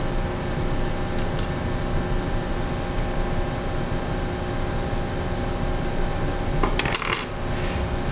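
Steady machinery hum with several steady tones throughout. Light clicks about a second in, and a short metallic clatter near seven seconds as a compressometer's aluminum holding bar and its screw knobs are taken off and set down on the bench.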